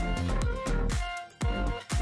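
Background music with a steady beat: regular drum hits under held instrument notes.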